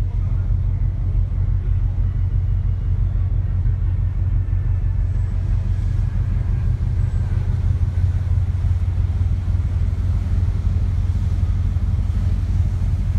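Steady low rumble of wind buffeting the microphone on the open deck of a container ship at sea, flickering rapidly in loudness.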